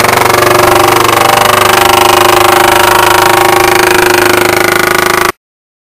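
Tippmann A5 paintball marker in a Browning .50 replica shell firing a long full-auto burst: a fast, steady rattle of shots that cuts off abruptly near the end.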